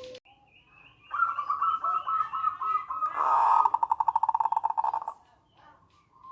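Zebra dove (local perkutut) calling: a quick stuttering run of coo notes that breaks into a fast, even rattling trill, the 'nretek' call, stopping about five seconds in.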